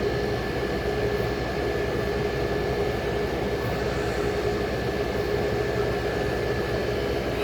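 A 35-year-old General Electric Carry Cool window air conditioner running: a steady hum and fan rush with two constant whining tones.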